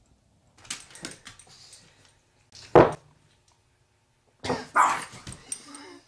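A dog barking in reaction to a fart. There is one sharp bark about three seconds in, a quick run of barks near the end, and some softer sounds early on.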